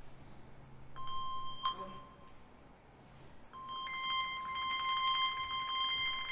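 Handbells rung as single notes. One bell strikes about a second in and is damped shortly after. Near the middle it rings again, joined by a second bell an octave higher, and both are left ringing.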